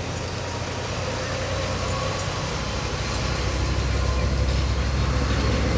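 A motor vehicle on the road: a steady low rumble of engine and road noise, growing gradually louder, with a faint steady whine over it.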